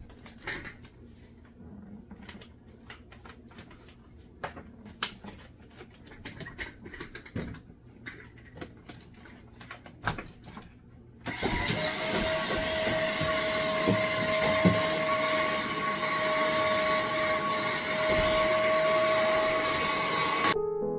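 Scattered clicks and knocks, then a vacuum cleaner switched on about halfway through, running steadily with a constant whine, and cut off abruptly near the end.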